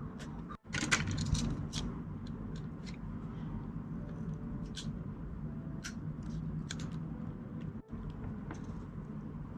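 Small scattered clicks and scrapes of repair tools working at an iPhone's screen edge and adhesive, a cluster of them about a second in, over a steady low hum.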